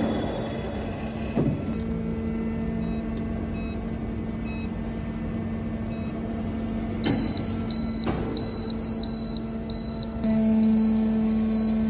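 Industrial beam band sawing machine running with a steady electric hum. From about seven seconds in, a run of short high-pitched electronic beeps repeats about twice a second, and the hum gets louder near the end.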